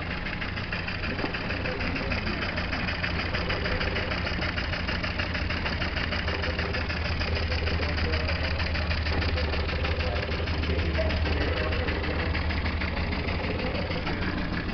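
Small model steam engine running steadily, driving the line shafts and belts of a miniature machine shop. It makes a rapid, even clatter over a low hum.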